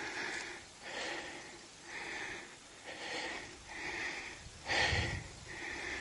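A person breathing hard in a steady rhythm, about one breath a second.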